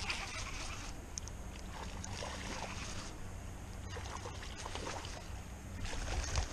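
Baitcasting reel being cranked to retrieve a spoon lure, its winding heard in short spells over a steady background rush. Near the end, footsteps crunch on gravel.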